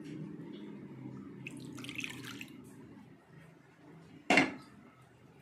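Milk being poured into a stainless steel bowl: a steady pour for about three seconds, then a single sharp knock about four seconds in.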